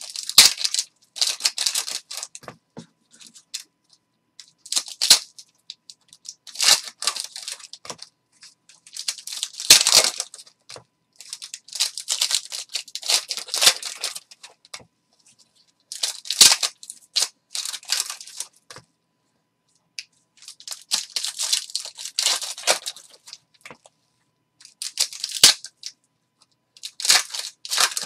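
Hockey card pack wrappers being torn open one after another: a string of short ripping and crinkling bursts with brief pauses between them.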